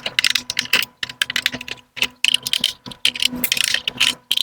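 Screwdriver backing screws out of a printer's plastic casing: rapid, irregular clicking and rattling in quick clusters.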